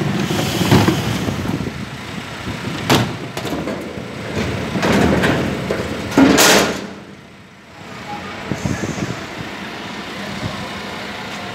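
Dennis refuse lorry's engine running with a steady hum, broken by knocks and clattering bangs from its rear bin-loading gear, the loudest about six seconds in. The sound drops away briefly just after that, then the engine hum carries on.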